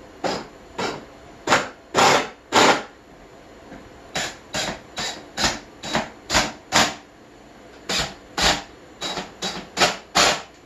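Work on wood with a hand tool: about twenty short, sharp strokes in irregular groups while a support board is fixed to the cat tree's upright board.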